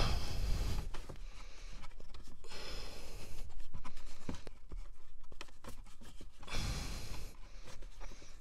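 A HEPA cabin air filter being pushed into its snug slot in a Tesla Model 3's plastic filter housing: three bursts of scraping and rubbing as the filter grinds against the housing, with scattered clicks of plastic between them.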